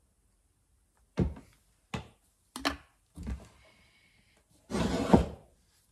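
Handling noise from a Husqvarna 61 chainsaw being moved about on a wooden workbench: a few short knocks, then a longer, louder scraping shuffle about five seconds in.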